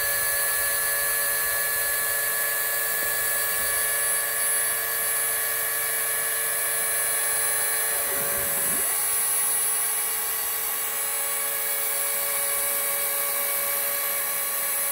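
Dremel rotary tool running steadily at high speed as the spindle of a home-built CNC mill, facing a wooden surface: a constant high whine holding several fixed tones.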